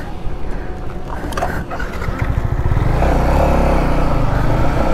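Motorcycle engine running under throttle as the bike rides. It gets louder about two and a half seconds in and then holds a steady note at speed.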